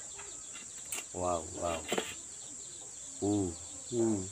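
Steady high-pitched insect drone, with three short, low voiced sounds and a couple of sharp clicks over it.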